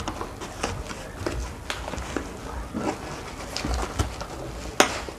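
Cardboard box and packaging handled while unboxing: scattered light knocks, scrapes and rustles of cardboard and plastic wrap, with a sharper click near the end.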